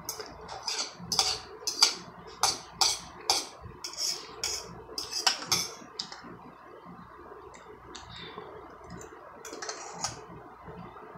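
A person eating spaghetti close to the microphone: a quick run of sharp slurping and chewing smacks over the first six seconds, then quieter, scattered chewing clicks.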